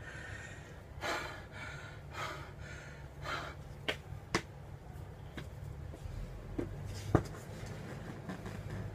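A person moving about in a small room: a few soft breathy sounds in the first few seconds, then several sharp taps a second or more apart, the loudest about seven seconds in, over a steady low hum.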